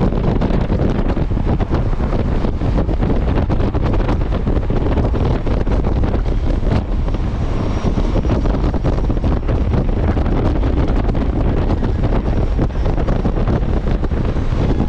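Wind rushing over the microphone, mixed with the steady running of a Honda Gold Wing GL1500's flat-six engine and tyre noise at highway cruising speed.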